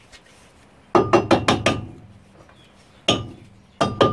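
Front brake disc of a 2001 Mazda MPV being knocked and worked free of the hub, giving sharp metallic clinks that ring: a quick run of about five about a second in, then three more single knocks.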